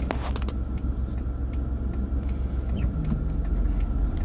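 Inside a moving Hyundai car: steady low engine and road rumble, with a light, even ticking about three times a second and a sharp click right at the start.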